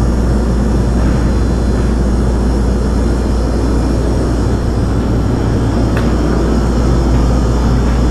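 A loud, steady low drone with a hum in it, with one faint click about six seconds in.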